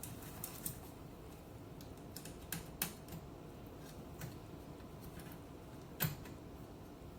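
Scattered light clicks and taps of a screwdriver and small metal telephone parts being handled during reassembly, with a sharper click about six seconds in.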